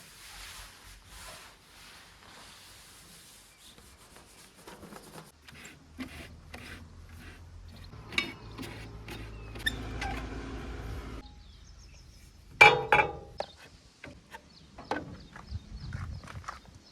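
Backhoe loader at work, its bucket scraping and knocking through mud. A low engine rumble builds in the middle, and a single sharp metallic clank comes about three quarters of the way through.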